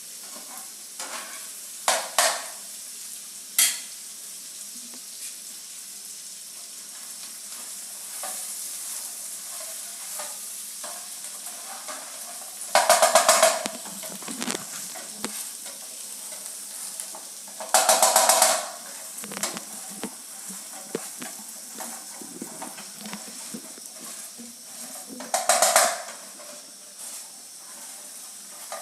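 Masala gravy sizzling in oil in a pan while a spoon stirs it, with small clicks against the pan. Three louder rasping bursts of about a second each come about 13, 18 and 25 seconds in.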